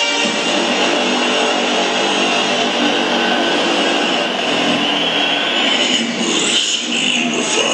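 Electronic background music: a dense, noisy synth texture over held chords, with sweeping rising and falling effects near the end.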